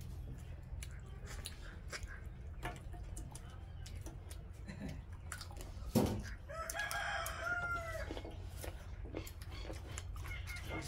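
A rooster crows once about six seconds in, a pitched call lasting about a second and a half, just after a sharp knock. Scattered small clicks and a steady low hum run underneath.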